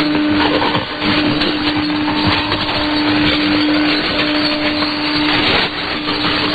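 Weak shortwave AM signal on 6100 kHz heard through a software-defined receiver: dense static and noise with a steady low tone running through it, dropping out briefly about a second in and again about four seconds in.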